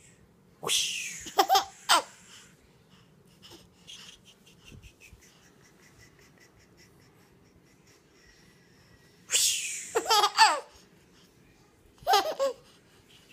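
A baby laughing in three bouts: a longer one about a second in, another around nine seconds in, and a short one near the end, each opening with a breathy gasp that breaks into high giggles.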